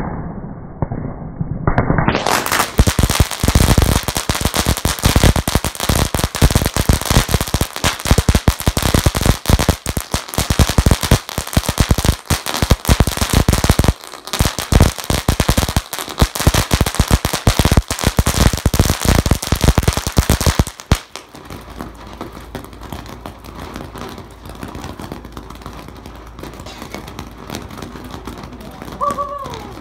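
A string of firecrackers going off in a long, rapid, crackling run of pops that stops abruptly about twenty seconds in.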